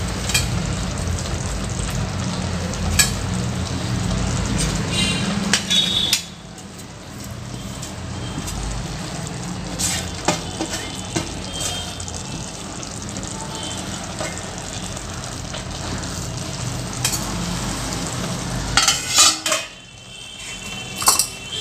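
Steady sizzling from the pressure cooker of layered biryani on the stove. Light rustles and clicks come as mint leaves are sprinkled over the rice, with a cluster of sharper clicks near the end.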